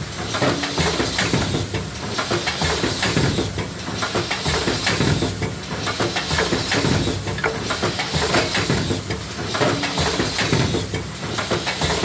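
Lunch box forming machine running: a steady clatter of mechanism with air hiss, repeating in a cycle about every two seconds as each box is formed.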